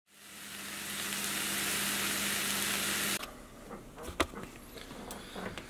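A steady hiss with a low hum under it fades in and cuts off suddenly about three seconds in. Then come a few faint clicks and knocks as the camera is handled.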